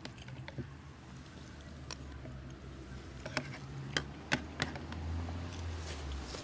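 A spoon clinking against a small bowl during a meal: a handful of short, sharp clicks, closest together in the middle, over a low steady hum.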